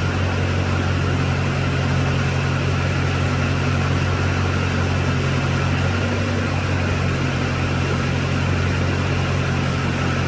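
2002 Chevy Silverado 2500HD pickup's engine idling steadily.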